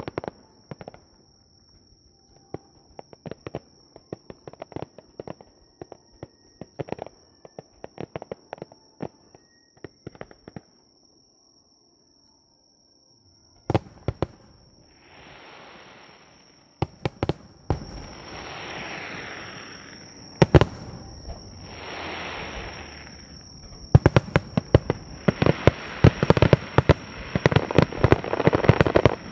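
Aerial fireworks shells bursting in a series of sharp bangs, a brief lull about eleven seconds in, then three swells of hissing crackle and a dense, rapid-fire barrage of bangs near the end.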